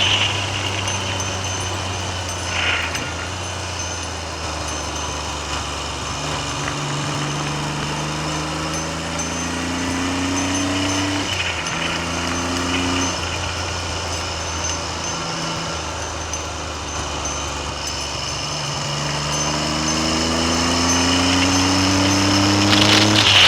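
Triumph Trident three-cylinder motorcycle engine under way, revs climbing and dropping sharply at gear changes, once about 11 seconds in, again about two seconds later and once more near the end. Wind noise buffets the microphone throughout.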